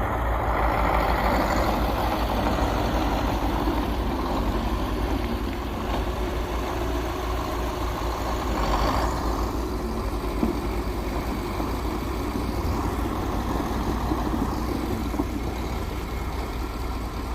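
Truck-mounted crane's diesel engine running steadily.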